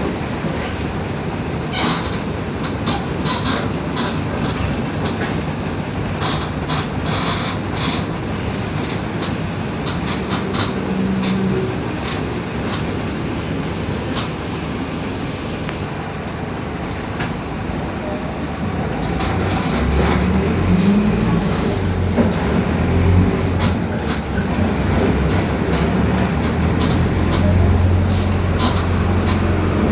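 Interior of a Mercedes-Benz OF-1721 BlueTec 5 diesel city bus under way: engine and drivetrain running with sharp body and panel rattles. It grows louder about two-thirds of the way through as a steady low hum comes in, a drone the uploader puts down to a roaring differential.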